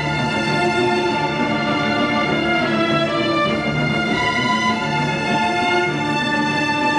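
Chamber string orchestra of violins, cellos and double basses playing classical music in long held notes.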